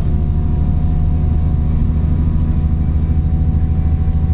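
Cabin noise inside a DB Class 612 diesel railcar under way: a steady low drone from the engines and running gear, with a faint steady whine above it.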